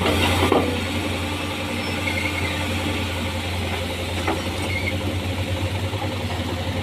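An excavator's diesel engine running steadily, with a sharp knock about half a second in and another about four seconds in.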